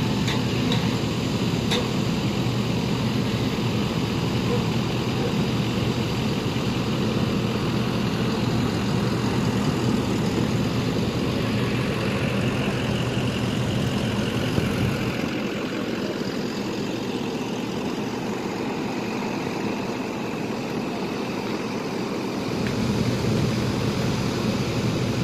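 A motor vehicle engine idling steadily with a low hum. Its lowest rumble falls away for several seconds about fifteen seconds in, then comes back.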